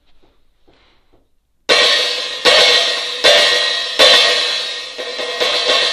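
13-inch Meinl custom Hurricane hi-hats, whose bottom cymbal has four vent holes. A few faint ticks come first. From about a second and a half in there are loud hits, about six of them less than a second apart, each leaving a long, bright ringing wash that carries on between strikes.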